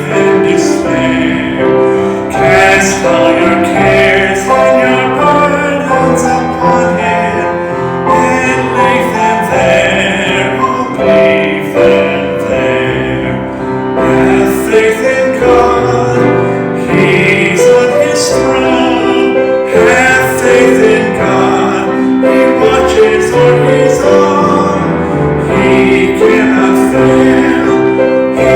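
A hymn sung with piano accompaniment, in a slow tempo with held notes.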